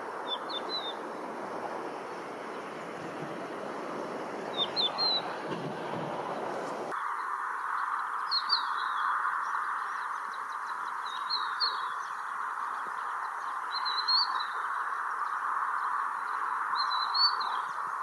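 Crested lark giving short, liquid whistled calls with quick rises and falls in pitch, six times a few seconds apart, over a steady background hiss.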